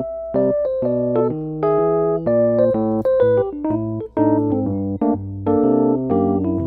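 Instrumental background music: an electric piano playing a melody of quick, evenly struck notes over a lower bass line.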